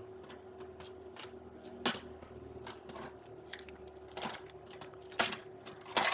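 Scattered clicks and taps of small hard parts being handled on a workbench, a few of them sharper knocks, over a faint steady hum.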